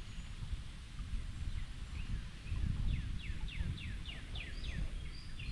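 A songbird singing a quick run of about eight short, downward-slurred notes a few seconds in, over a steady low rumble.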